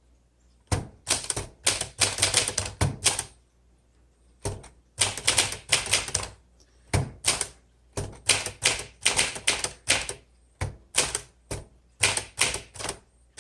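A 1957 Smith Corona Silent Super portable manual typewriter being typed on: rapid key strikes in runs of several, broken by short pauses between words, with a longer pause about three seconds in.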